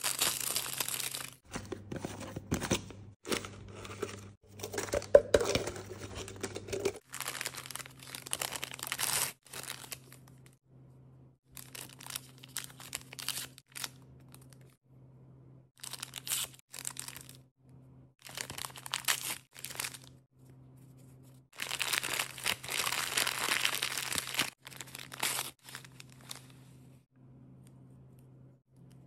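Plastic wrap and foil packets of a Barbie blind-box doll being torn open and crinkled by hand, in many short rustling bursts with brief pauses between them and a longer stretch of crinkling about 22 seconds in.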